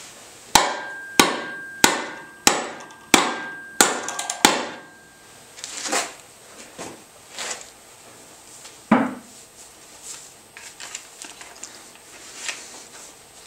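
Seven sharp metal-on-metal hammer blows, about two thirds of a second apart, with a faint ringing tone. They come from the butt of a Boker Kalashnikov OTF knife, stuck point-first in a wooden stool seat, being struck with the spine of a Hogue knife to drive the blade deeper. A few softer knocks follow.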